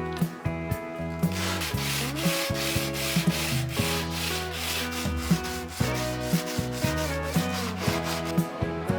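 Background guitar music with a steady beat; from about a second in until about six seconds, a rough, loud scraping noise of something being worked by hand sits over it.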